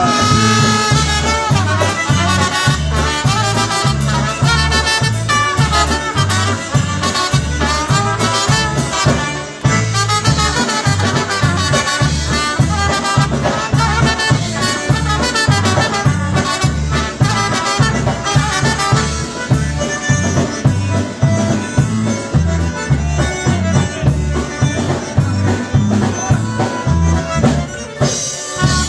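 Live polka band playing an instrumental passage between sung verses, with melody lines over a steady, evenly repeating bass beat.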